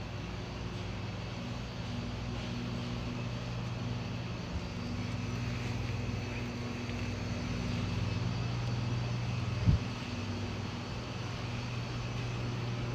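Steady low engine drone of a running motor vehicle, with one sharp knock about three-quarters of the way through.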